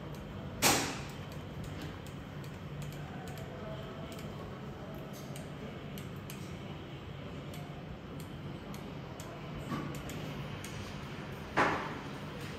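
Two sharp clicks or taps on a hard surface, one about a second in and one near the end, with a weaker tap shortly before the second and faint ticking in between, over a steady low hum.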